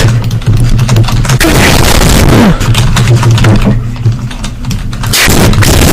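Very loud, heavily distorted audio: a deep steady hum under dense crackling, easing off briefly about four seconds in.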